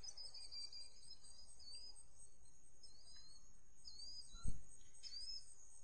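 Summer night ambience: a steady, high-pitched insect trill with faint chirps that rise and fall, repeating about once a second, and a single dull thump a little past halfway.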